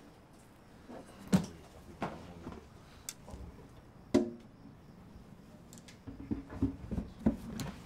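Scattered sharp clicks and knocks, with a short ringing note after one of them about four seconds in and a quicker cluster near the end.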